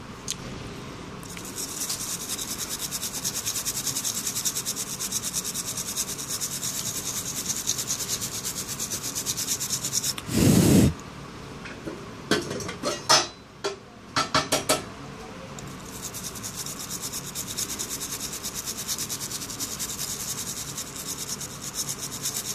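Fast, even scrubbing strokes on a phone circuit board (BlackBerry Z10), cleaning the freshly soldered board with technical alcohol. The scrubbing breaks off about halfway through for a short loud knock and a few sharp clicks, then starts again.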